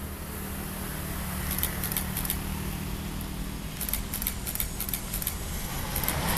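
Camera shutter firing in several short runs of rapid clicks, over a steady low rumble of road traffic passing below.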